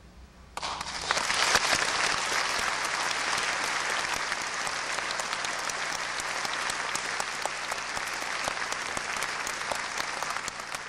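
Audience applause breaking out about half a second in and carrying on as dense, steady clapping: the audience applauding the end of a solo daegeum performance.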